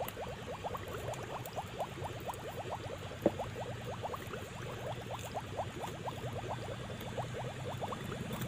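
Water bubbling steadily in a rapid stream of little rising blips, with one sharp click about three seconds in.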